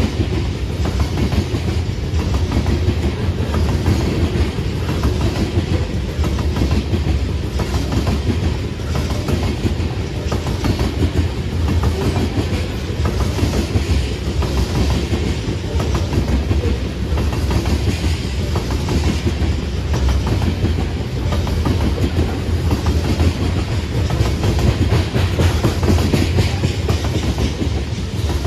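Freight train of coal hopper cars rolling past. The steel wheels on the rails make a steady low rumble with a continual clatter.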